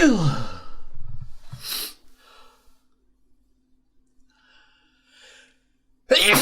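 A person sneezing: the voiced end of one sneeze falling away in pitch, a short sharp breath about a second and a half later, then the loud start of the next sneeze near the end.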